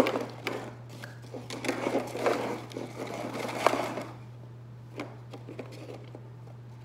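Pringles crisps rattling and clicking in their cardboard tube as a hand rummages in it and pulls chips out, a dense clatter for about four seconds, then one more click a second later. A steady low hum runs underneath.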